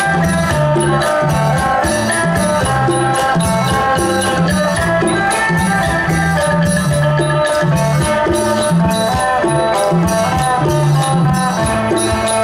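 Isan pong lang folk band playing an instrumental passage: quick runs of level, tuned notes over a repeating bass figure, with percussion keeping a steady beat throughout.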